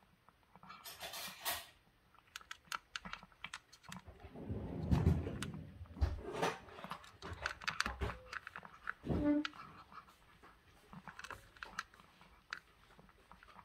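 Calico cat eating from a plastic bowl: repeated small crunches and chewing clicks. A louder low rumbling stretch comes about four to six seconds in, and a short pitched sound near nine seconds.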